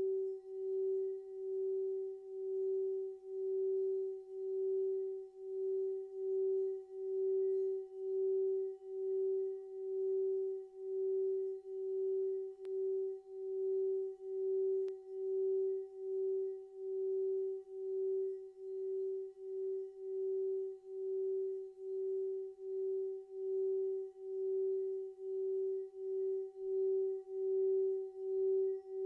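A hand-held singing bowl rubbed around its rim with a mallet, singing one steady sustained tone with a fainter higher overtone. The tone swells and fades in a regular wavering pulse, about once a second.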